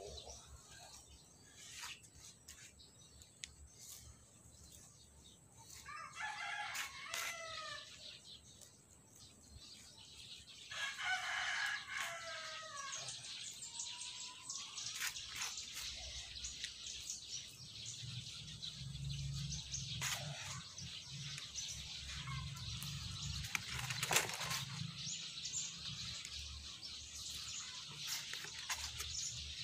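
A rooster crowing twice, about six and eleven seconds in, over scattered clicks of hands working in the soil. A low rumbling noise runs through the second half.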